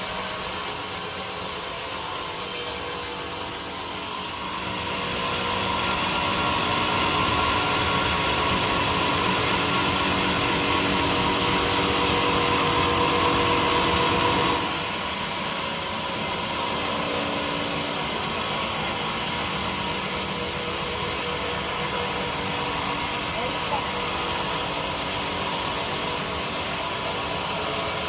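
Electric power tool running steadily as it works wood, a continuous whir with a hiss of cutting or abrading. The sound changes abruptly about four seconds in and again about fourteen seconds in.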